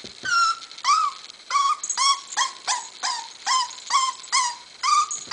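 A young puppy whimpering in a run of short, high-pitched whines, about two a second, each dropping in pitch at the end.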